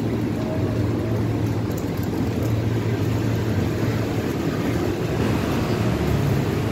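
Steady low rumble with a constant low hum underneath, like a running engine or machinery, with no clear speech.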